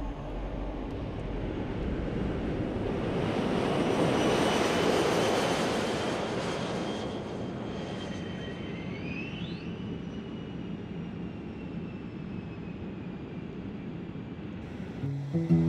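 An aircraft passing over: a rushing engine noise that swells to its loudest about four to five seconds in and then slowly fades, with a thin whine sliding gradually lower in pitch as it goes.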